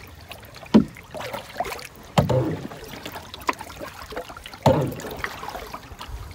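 Paddling an Old Town Discovery 119 canoe: a sharp knock with a splash about every one and a half seconds as the paddle strokes, over water lapping at the hull.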